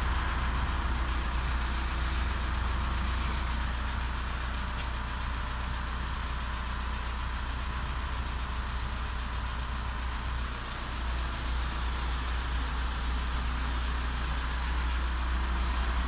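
Pressure-washer lance spraying a jet of water onto a car's roof and body panels: a steady hiss of spray over a constant low hum, dipping briefly about two-thirds of the way through.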